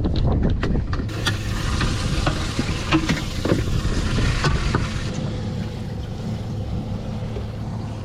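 Boat motor running steadily with a hiss over it that eases off after about five seconds, and a few light knocks in the first half.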